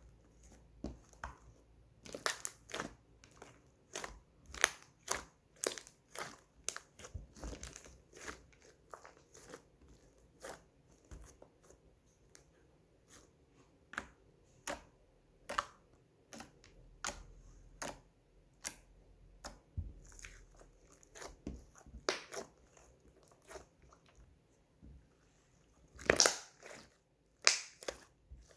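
White slime being squeezed, poked and stretched by hand, giving irregular sticky clicks and crackling pops as air pockets burst. The loudest pops come twice near the end.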